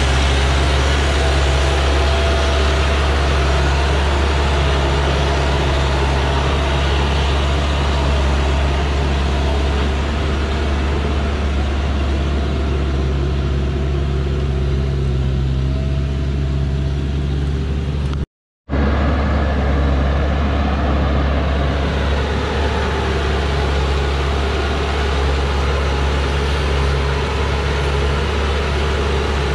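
Diesel engine of a heavily loaded Dongfeng logging truck running steadily as the truck crawls along. The sound cuts out completely for a split second about two-thirds of the way through.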